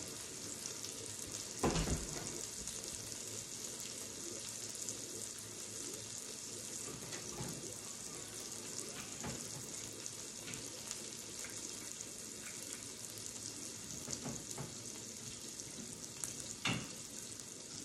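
Meat frying on a griddle, a steady sizzle, with a sharp knock about two seconds in and another near the end.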